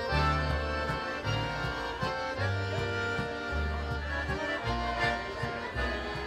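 Music: held chords over a bass line that changes note about once a second.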